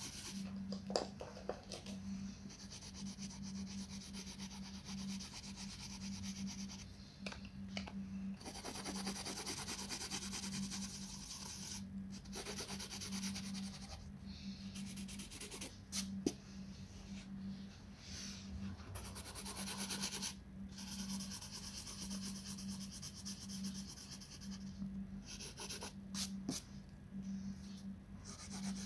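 Coloured pencil scratching on colouring-book paper in fast back-and-forth shading strokes, in runs broken by short pauses, with a few light taps. A steady low hum runs underneath.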